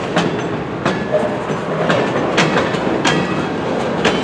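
CN freight train rolling slowly past after starting up: a steady rumble of freight cars with wheel clacks over rail joints every half second to a second and a faint wheel squeal.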